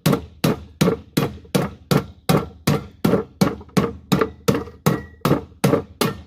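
Hammer striking a metal pressure cooker in a steady run of blows, about three a second, each with a brief metallic ring.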